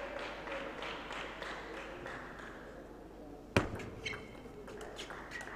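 A table tennis rally: one loud, sharp knock about three and a half seconds in, then a quicker run of lighter clicks as the ball strikes bats and table. A low murmur of voices is heard in the hall before it.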